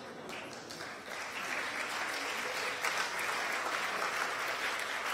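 Audience applauding, building up over the first second or so and then holding steady.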